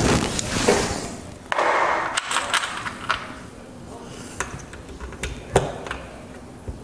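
Scattered clicks and light knocks of hand tools being handled on a stepladder's top tray, with a short rustle about one and a half seconds in.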